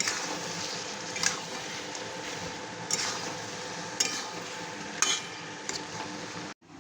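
Chicken pieces being stirred into onion, capsicum and sauce in a hot kadai: a steady frying sizzle, with scrapes and clinks of the stirring utensil against the pan about once a second. The sound cuts off abruptly near the end.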